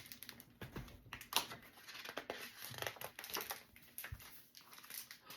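Quiet rustling and scattered small clicks of a paper picture book being handled, its pages being turned.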